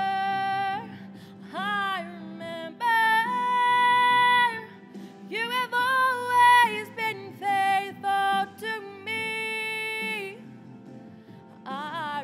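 Slow worship song: a woman singing long held notes that glide between pitches, with soft instrumental accompaniment underneath.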